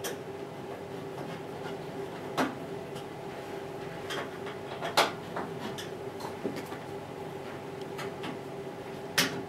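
A few sharp clicks and knocks of a screwdriver being handled and set against the screws and sheet-metal panel of a washing machine, the loudest about five seconds in, over a steady hum.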